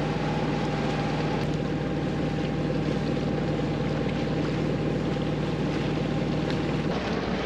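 A 30 ft sailboat's inboard engine running steadily under way, with water rushing past the hull and wind noise. The engine's steady hum stops near the end.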